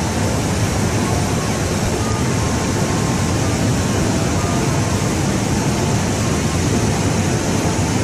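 Waterfall water rushing over rock ledges: a steady, even rush with no pauses.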